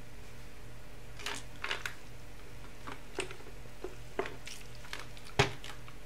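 Scattered small clicks and taps of makeup brushes and a palette being handled, with a sharper knock near the end.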